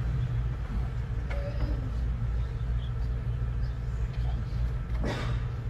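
Steady low rumble of indoor room ambience, with a faint indistinct voice about a second and a half in and a brief noise near the end.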